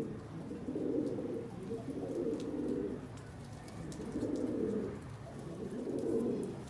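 Pigeons cooing: a bout of low cooing about every one to two seconds, around five bouts in all.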